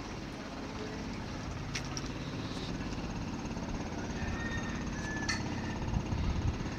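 Steady low mechanical hum with a few light clicks.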